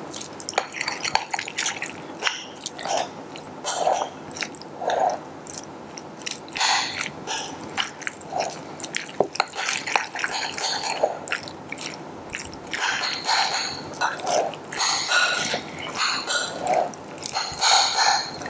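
A metal spoon stirring a rice salad into mayonnaise in a glass bowl: wet, squelching mixing, with irregular clicks of the spoon against the glass.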